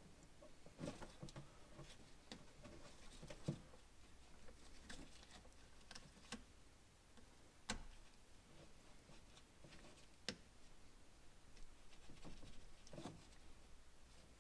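Faint clicks and light taps of a new fog light bulb and its plastic housing parts being handled and fitted by hand, with two sharper clicks about eight and ten seconds in.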